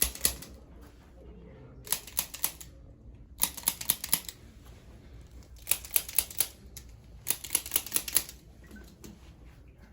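Several short bursts of rapid mechanical clicking, each run of quick ticks lasting under a second and repeating every one and a half to two seconds.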